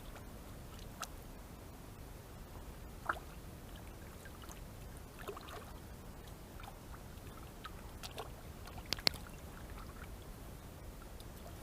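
A freshly gutted grayling being rinsed by hand in river water: small intermittent splashes and dribbles over the steady rush of the river, with one sharper click about nine seconds in.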